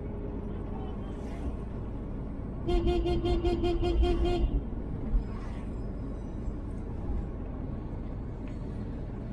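A vehicle horn beeping in a quick run of about ten short toots, about three seconds in, over the steady low rumble of the taxi's engine and tyres on the road.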